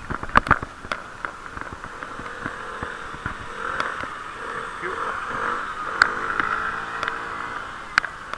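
Muffled riding noise picked up by a camera sealed in a waterproof case: a steady dull hiss, broken by sharp clicks, two in the first second and others about six and eight seconds in.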